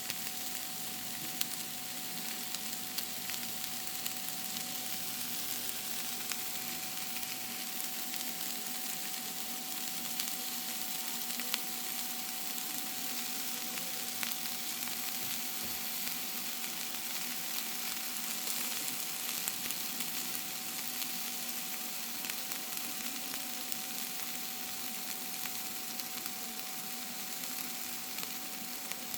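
Food frying in hot oil in a pan: a steady sizzle with scattered sharp crackling pops, over a faint steady hum.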